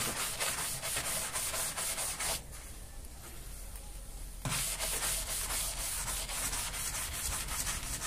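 Hand brush scrubbing the soapy, sanded metal side panel of a refrigerator in rapid back-and-forth strokes. The strokes stop about two and a half seconds in and start again about halfway through.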